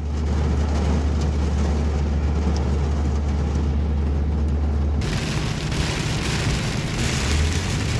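A vehicle running, with a steady low drone under a wide hiss that fits road or rain noise. The sound changes about five seconds in, the drone giving way to a rougher, noisier hiss.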